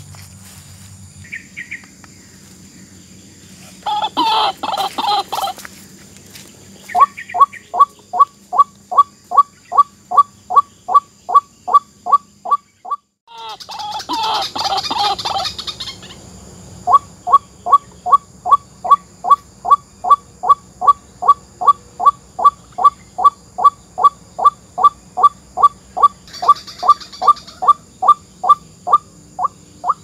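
White-breasted waterhen calls: a harsh croaking outburst followed by a long run of loud, evenly repeated 'kwak' notes, about three a second. The sequence breaks off about halfway through and starts again with the croaking, like a looped lure recording.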